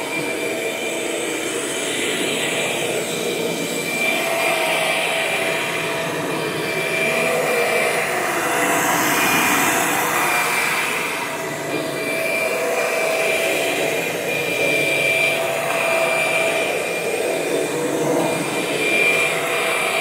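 Kirby Generation 6 upright vacuum running steadily: a loud, constant rush of air with a high steady whine from the motor and fan. The level shifts a little as it is pushed back and forth over carpet.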